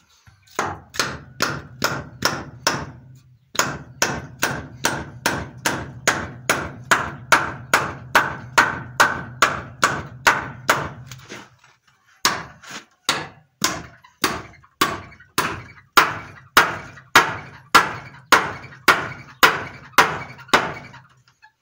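Hammer driving nails into wooden boards: steady blows at about two to three a second, in three runs with short pauses about three and a half and twelve seconds in.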